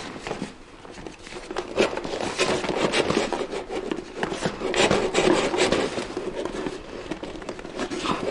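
Rustling, rubbing and scraping of a hybrid kayak's hull fabric and a fibreglass seat being worked into place by hand, with a few short knocks.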